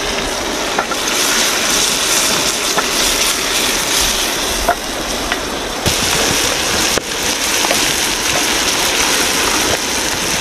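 Shrimp and crab frying in a wok over a wood fire: a steady sizzle with scattered small pops.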